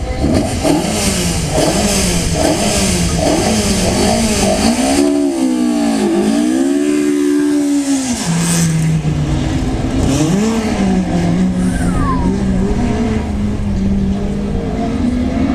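Rally car engine being blipped on the throttle in quick repeated revs for about five seconds, then one longer rise and fall, then settling to a steady idle with one more short blip about ten seconds in.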